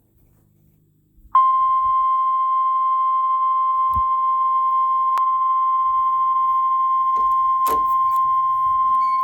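NOAA Weather Radio 1050 Hz warning alarm tone: one steady, unbroken high beep that starts about a second in and holds at an even level. It signals that a warning, here a severe thunderstorm warning, is about to be read.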